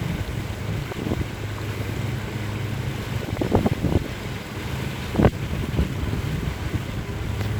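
Boat motor running steadily underway, a low even hum, with wind buffeting the microphone. A few light knocks come about three and a half seconds in, and a sharper one about five seconds in.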